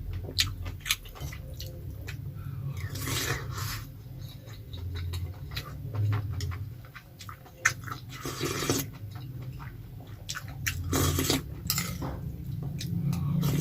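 Close-up chewing of goat offal in sour soup, with many short wet clicks of the mouth and a few longer noisy bursts, over a steady low hum.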